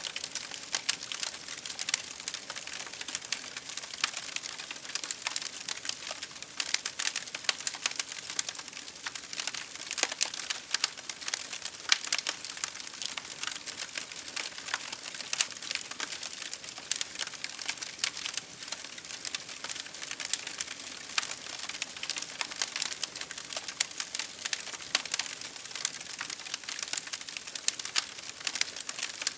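Fire crackling: a dense, irregular run of small, sharp pops and snaps, mostly high-pitched, with no let-up.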